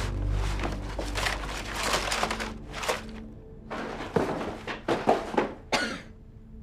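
Tense background music with a low drone for about the first second, then scattered knocks and rustling, with several sharp clicks between about four and six seconds in.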